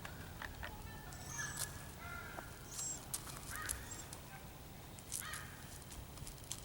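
Faint, scattered crunches and clicks of small steps on gravel, with a few short bird calls in the distance.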